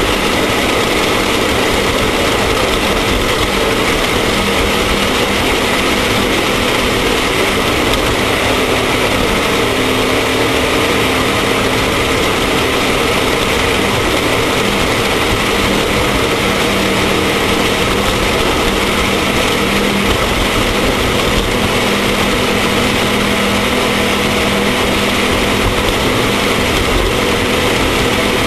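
Off-road race vehicle's engine running steadily and loudly under an even rush of noise, with no breaks or sudden changes.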